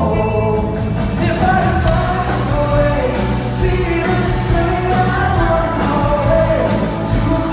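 Live pop-rock band performance with a singer's voice carrying the melody over drums keeping a steady beat.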